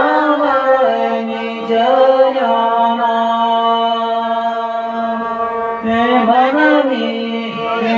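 Women singing a slow devotional song through microphones, with a bowed fiddle accompanying. A long note is held steady through the middle, with sliding pitch before and after.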